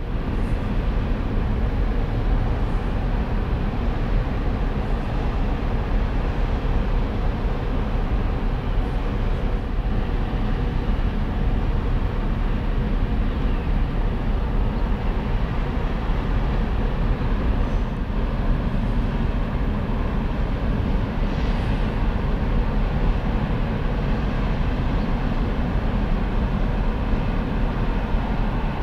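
The ferry Mega Express's diesel engines and exhaust give a steady low rumble with a faint hum in it as the ship comes into harbour.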